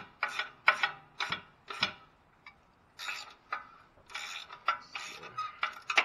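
Hand ratchet clicking in short strokes, several a second, as a 16 mm bolt is worked loose; the clicking stops for about a second midway, then starts again.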